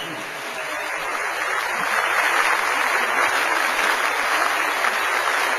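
Theatre audience applauding, swelling over the first couple of seconds and then holding steady.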